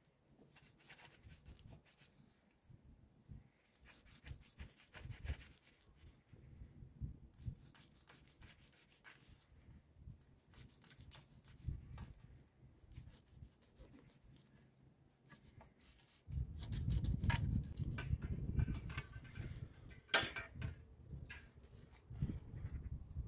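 Kitchen knife scoring the skin of a whole fish on a metal tray: faint scrapes and small clicks. About sixteen seconds in a louder low rumble sets in, with a sharp clink a few seconds later.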